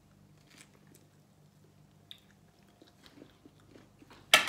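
Several people quietly chewing and biting into slices of deep-dish pizza: faint small mouth and crunching sounds over a steady low hum. A sudden loud sound breaks in at the very end.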